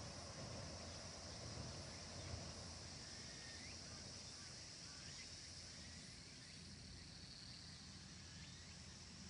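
Faint rural outdoor ambience: a steady high insect drone, with a few faint bird chirps about three to five seconds in, over a low rumble.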